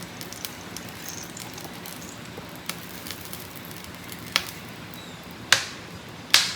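Food frying in hot oil, a steady sizzle, with several sharp clicks, the loudest two near the end.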